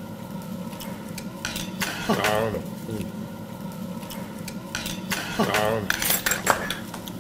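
Metal chopsticks clicking against plates and tableware as people eat at a table. Short bursts of voice come about two seconds in and again around five and a half seconds.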